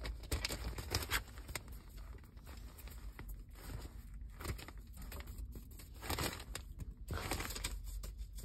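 Newspaper rustling and crinkling as a puppy moves about on it, in irregular spells of crackling.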